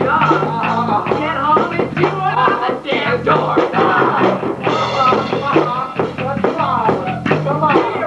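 Rap song: a male voice rapping fast over a drum beat and a repeating bass line.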